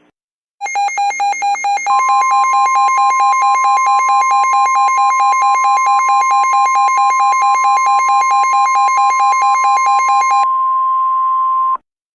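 Emergency alert attention signal: a harsh electronic tone beeping about four times a second, joined after about a second by a steady higher tone. The beeping stops about ten seconds in, leaving the steady tone alone briefly before it cuts off.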